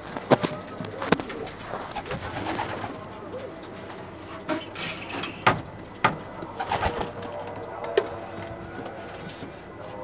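Racing pigeons cooing in a small loft, with about half a dozen sharp taps through it, the loudest about five to eight seconds in.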